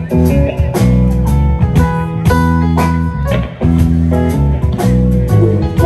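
Live band playing an instrumental passage: guitars over bass and drums, with no singing.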